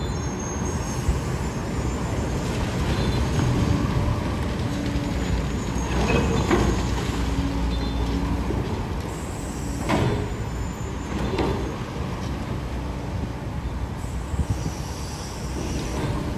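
Road traffic rumbling past, mixed with a Liebherr high-reach demolition excavator breaking concrete out of a building, with louder crunching crashes about six seconds and ten to eleven seconds in. A brief high squeal comes near the end.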